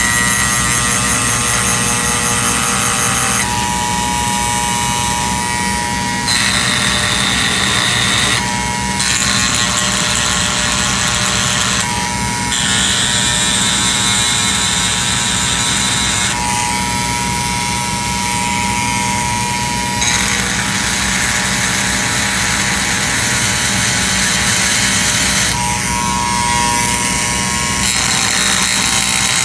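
Handheld rotary tool running continuously, its bit grinding against a small workpiece. A high whine rises and drops out every few seconds as the bit bites and lifts.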